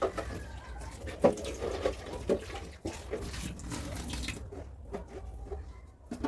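Water splashing, broken by irregular knocks and clatter.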